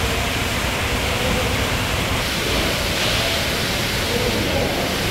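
Steady, loud rushing noise of workshop background, with a faint hum that comes and goes.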